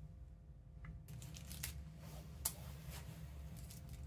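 Faint clicks and rustles of a small screwdriver and drone propeller parts being handled on a silicone work mat, with one sharper click about two and a half seconds in, over a low steady hum.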